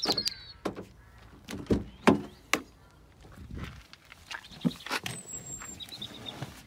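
Car being unlocked with the key fob and the driver's door opened and climbed into: a string of separate clicks and thumps, the loudest about two seconds in.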